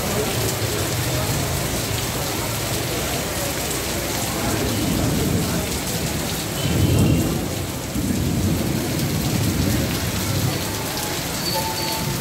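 Heavy rain pouring steadily, with low rolling thunder that swells about five seconds in, is loudest a couple of seconds later and rumbles on for a few seconds more.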